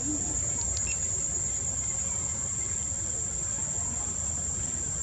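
Steady, high-pitched drone of an insect chorus, unbroken throughout, over a low rumble.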